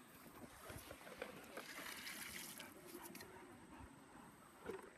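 Near silence, with a faint trickle of river water and a few soft clicks.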